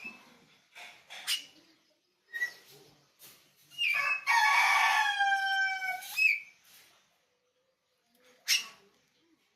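Oriental magpie-robin giving short, sharp calls, with one long crowing call falling slightly in pitch in the middle, about two and a half seconds long and the loudest sound.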